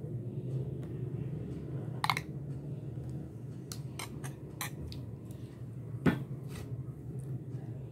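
A kitchen utensil clicking and tapping against a clear plastic container as thick, creamy salad dressing is dolloped in, with the loudest taps about two seconds in and about six seconds in. A steady low hum runs underneath.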